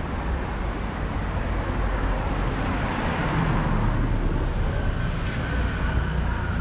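Street traffic with a motor scooter passing on the road. Its engine noise swells about halfway through, over a steady low rumble.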